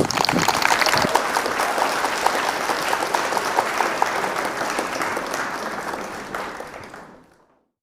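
School assembly audience applauding, many hands clapping at once, the clapping dying away near the end.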